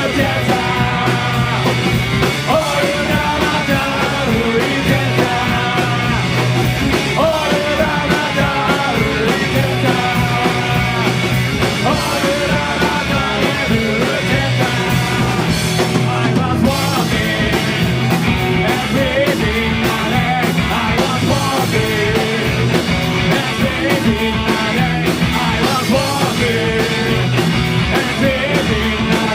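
Rock band playing live, loud and continuous: a fast garage-punk song with band instruments pounding on without a break.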